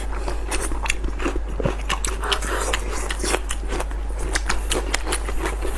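Close-miked wet chewing and lip-smacking of soft, sauce-coated blood sausage, a dense run of quick moist clicks.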